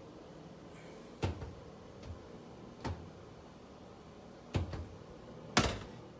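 Four sharp knocks or thumps a second or two apart, the last one the loudest, over a faint steady hum.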